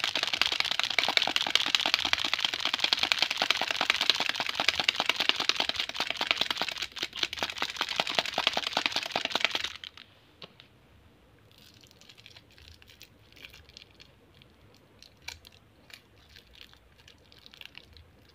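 Candy wrappers crinkled by hand: a loud, dense crinkling for about the first ten seconds, then softer, scattered crinkles as a clear cellophane twist wrapper is worked open.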